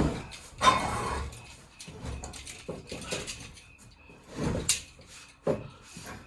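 Steel chain clinking and rattling against a steel bar as it is hung and worked over the bar's end, with a few irregular metal clanks and knocks.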